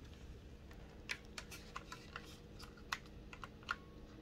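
A handful of faint, scattered clicks and light taps from hands handling an airsoft M4 rifle.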